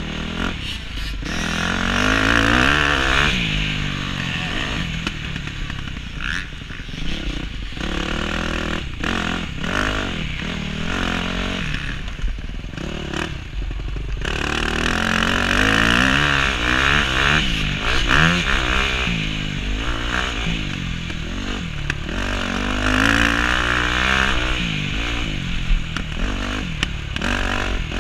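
Motocross bike engine revving up and down again and again as it is ridden round a dirt track, its pitch rising under throttle and dropping off between, over a steady rushing hiss.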